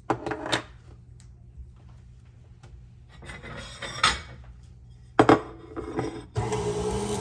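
A few knocks and rubbing clatters as a carrot and parts are handled on a KitchenAid Spiralizer Plus. Then, about six seconds in, the KitchenAid stand mixer's motor starts driving the attachment and runs with a steady hum.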